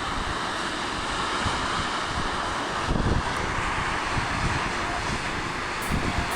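Strong wind rushing and buffeting against the phone's microphone, with a steady hiss and uneven low rumbles, a little stronger about three seconds in.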